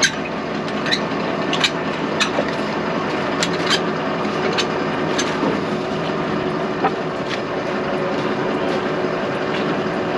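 New Holland tractor's diesel engine running steadily, with sharp metallic clicks every second or so at uneven intervals.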